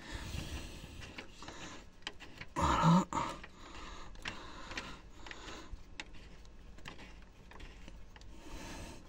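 Faint rubbing and scraping with small clicks, from hand work on the bolt of a car's lower engine mount, and one brief louder sound about three seconds in.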